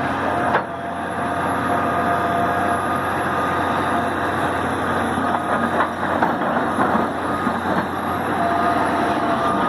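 Excavator's diesel engine running steadily, with a sharp click about half a second in.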